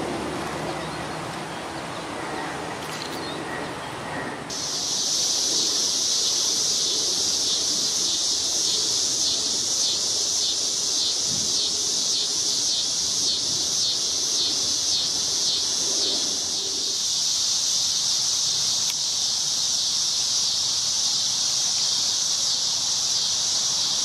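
A loud, steady, high-pitched insect chorus buzzing in a meadow, typical of late-summer cicadas and katydids. It starts suddenly about four and a half seconds in, after a few seconds of soft outdoor noise.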